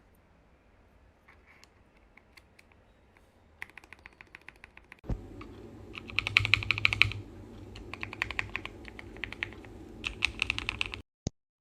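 Typing on a mechanical keyboard fitted with KTT Strawberry switches: a few faint keystrokes at first, then fast continuous typing from about three and a half seconds in that gets louder about five seconds in, with a quick flurry of keystrokes around six to seven seconds. It cuts off abruptly near the end.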